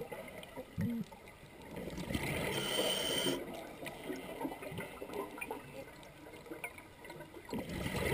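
A scuba diver breathing through a regulator underwater. A hissing inhalation comes about two and a half seconds in and again near the end, with bubbling, gurgling exhalation between.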